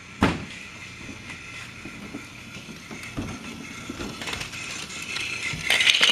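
Battery-powered toy Thomas engine's motor whirring as it runs along plastic track, with a knock just after the start. Near the end, Duplo blocks clatter loudly as the train pushes through the block wall and knocks them down.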